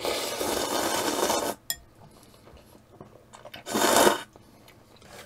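Noodles being slurped noisily from a bowl of instant ramen: one long slurp of about a second and a half at the start, and a second, shorter slurp about four seconds in.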